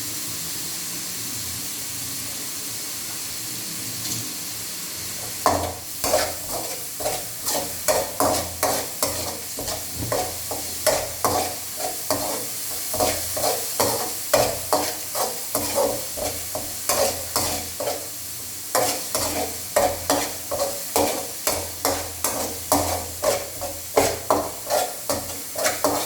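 Onions and chillies sizzling in hot oil in a frying pan, steady at first, then from about five seconds in stirred and scraped against the pan in quick repeated strokes, about two a second, while the sizzling goes on.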